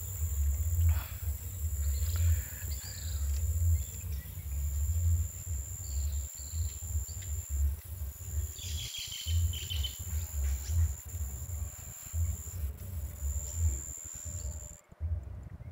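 Birds chirping now and then over gusts of wind rumbling on the microphone, with a steady thin high-pitched whine underneath.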